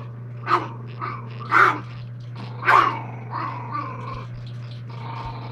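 A small black-and-tan dog barking and growling with its teeth bared: three sharp barks about a second apart, then softer growls. It is an irritated dog warning off someone who is teasing it.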